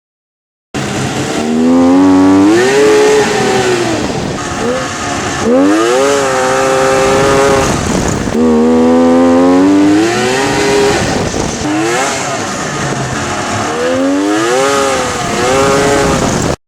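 Polaris XLT 600 snowmobile's two-stroke engine running and being revved, its pitch rising and falling about four times. It is the sound of a sled that doesn't run very well, the reason for its tune-up.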